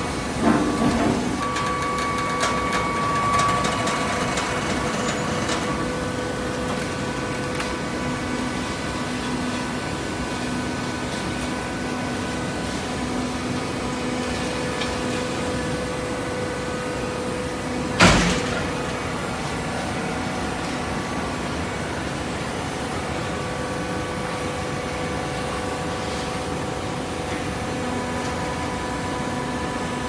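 Horizontal hydraulic baler running, its power pack giving a steady hum, with a few knocks in the first second and one sharp, loud metallic bang about halfway through.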